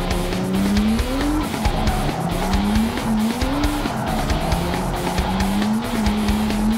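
Nissan Skyline R32 drift car's engine revving up three times, each climb in pitch cut by a drop, then holding steady near the end, with tyres squealing. Background music plays underneath.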